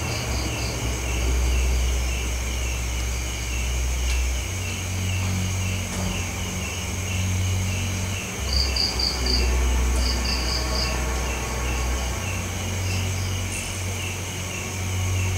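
Night insects calling: crickets chirping evenly about three times a second over a steady high ringing. Short quick trills of four pulses come twice, about halfway through. A steady low rumble runs underneath.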